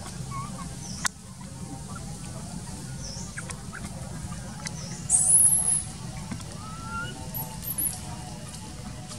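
A baby macaque squealing: one shrill, high squeal about five seconds in, the loudest sound, then a couple of shorter squeaks near the end. Small chirps and a steady low hum run underneath, with a single sharp click about a second in.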